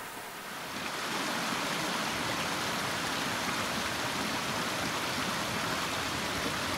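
A small cascade of a mountain stream running steadily over rocks, a continuous rush of water fading in about a second in.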